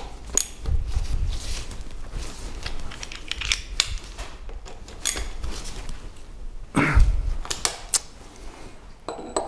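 Small steel parts and hand tools clicking and clinking as they are handled and picked from a metal parts tray, with a louder knock about seven seconds in.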